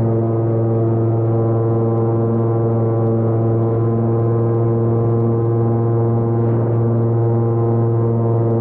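Airboat's engine and large air propeller running steadily at speed, a loud, even drone with a strong deep hum.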